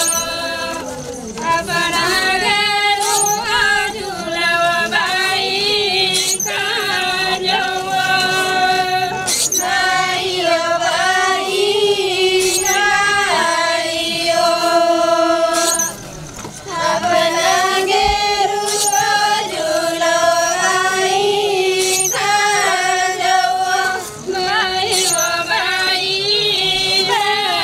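A group of Korku women singing a folk song in unison, in held phrases of a few seconds. A sharp percussive stroke recurs about every three seconds.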